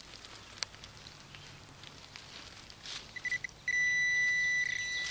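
Metal-detecting pinpointer probe sounding its alarm tone over a metal target in the dug soil. It gives a few short beeps a little after three seconds in, then a steady, louder beep tone that holds.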